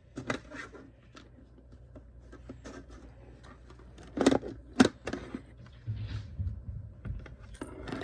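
Plastic CD cases and packaging being handled: light scraping and scratching with scattered clicks, and two sharp knocks about half a second apart just after four seconds in.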